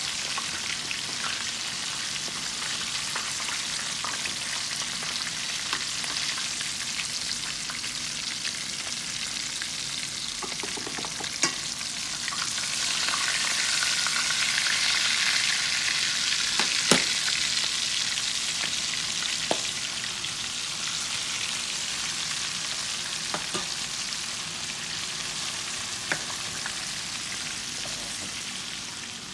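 Chicken drumsticks sizzling as they deep-fry in oil in a stainless steel pan, a steady hiss that swells louder for a few seconds midway. A few sharp clicks of metal tongs against the pan as pieces are lifted out.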